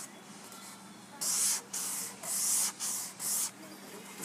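400-grit wet sandpaper on a hand sanding block, rubbed back and forth over wet automotive primer. It starts about a second in with about five quick strokes. This is block-sanding the primer to level a low spot in the body panel.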